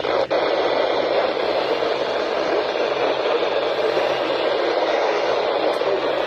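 Steady radio static hiss from a weather-radio receiver on a weak, picky signal, with a short click just after the start.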